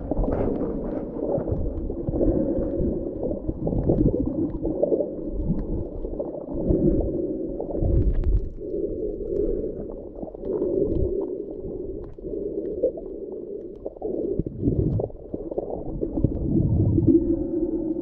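Muffled underwater sound picked up by a camera held below the surface while snorkeling: a steady low churning rumble of water movement with gurgles.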